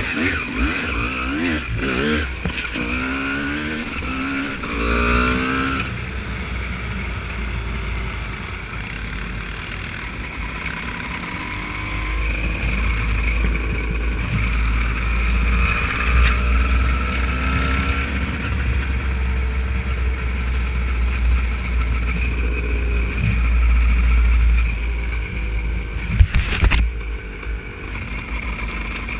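Honda CR250 two-stroke motocross bike being ridden off-road: the revs climb in several quick rising sweeps over the first few seconds, then the engine runs on at steadier revs. Heavy wind rumble on the microphone, with a few sharp knocks near the end.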